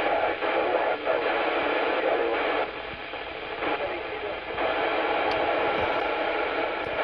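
Hissing FM receiver noise from a Yaesu FT-847 transceiver's speaker, tuned to the BY70-1 CubeSat's 70 cm FM transponder downlink, with faint traces of signal in the hiss. It drops quieter for about two seconds midway.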